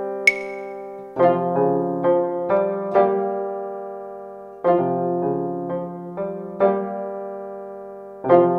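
Background piano music: short phrases of struck notes over low chords, each left to fade, with a new phrase starting about every three and a half seconds. A sharp, bright click with a brief high ring comes about a third of a second in.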